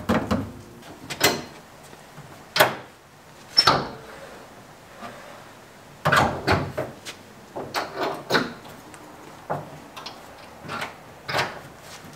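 Metal clicks and clunks from a newly fitted hood pin and its spring clip being worked by hand and the car's hood being handled on its pins. The knocks are separate, with a busier run of them about six to eight seconds in.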